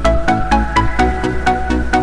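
Electronic background music with a steady, fast beat and a repeating melody over a sustained bass.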